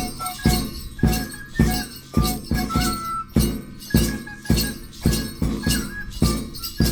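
Peruvian harp music: a steady beat of deep bass thumps about twice a second under a high sustained melody line, with jingling metal percussion.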